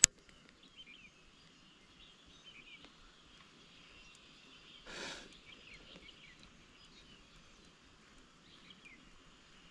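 Faint outdoor ambience with scattered short bird chirps, a sharp click at the very start and a brief whoosh about five seconds in.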